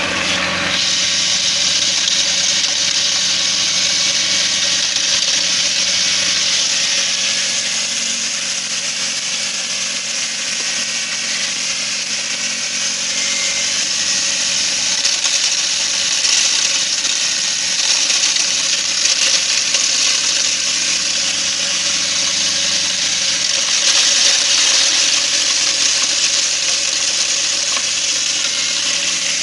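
Homemade hammer-blade grain grinder driven by a washing machine motor, running steadily with a loud rushing hiss as grain is milled through its 3 mm screen; the hiss grows stronger about a second in.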